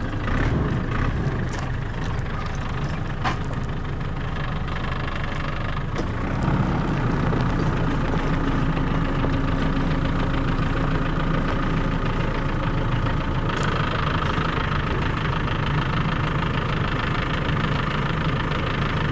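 An engine running steadily, its sound getting a little louder and fuller about six seconds in.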